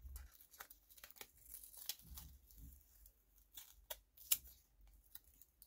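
Faint crinkling, peeling and scattered small clicks of a paper sticker roll being handled and unrolled by hand.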